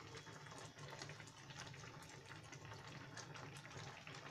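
Faint simmering of Maggi noodles in a thin broth in a wok, with a few light clicks as a spatula stirs through it.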